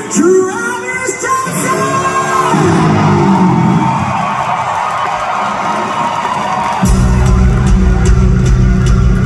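Live metal band playing in a concert hall, heard from the crowd: a sung melodic line at first, then about seven seconds in the full band comes in hard with heavy distorted guitars and drums.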